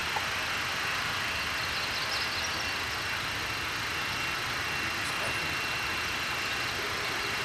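Steady, unbroken drone of a small engine from neighbors' yard-work equipment running without a pause.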